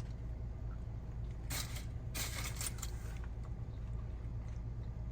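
Steady low background hum, with a few short rustles and crackles between about a second and a half and three seconds in.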